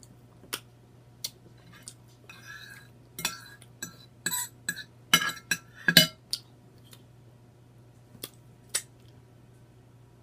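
Cutlery clinking and scraping on a plate of food: a few single clicks, then a run of clinks and knocks in the middle, the loudest about five and six seconds in, and two more clicks near the end.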